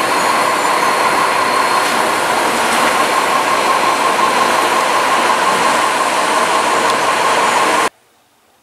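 Loud, steady noise of a train running on rails, which cuts off suddenly near the end.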